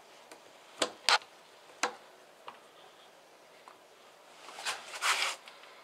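Sharp clicks and knocks of metal fuel lines being pressed into their rubber-lined holders and bracket under a Porsche 944: three clicks in the first two seconds, then a short rustling scrape near the end.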